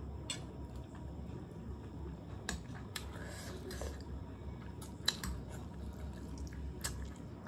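Close-up eating sounds of chow mein noodles being chewed and slurped, with wet mouth smacks and scattered short clicks.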